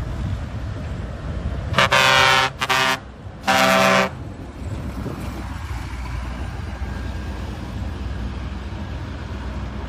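Bus horn sounding three loud blasts about two seconds in: a blast, a short one, then another of about half a second, over a steady low rumble.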